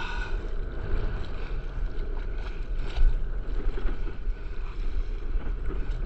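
Wind buffeting the microphone in a low rumble, with sea water lapping and splashing close by, and a single sharp thump about three seconds in.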